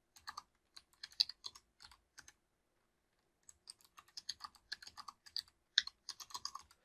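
Typing on a computer keyboard: a run of quick key clicks, a pause of about a second, then another run of typing.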